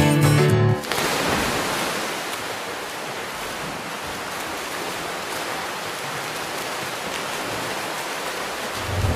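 Guitar music that cuts off about a second in, giving way to a steady, even rushing noise of water.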